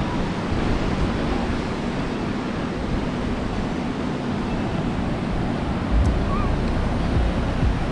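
Ocean surf breaking in a steady wash of waves, with wind rumbling on the microphone, stronger from about six seconds in.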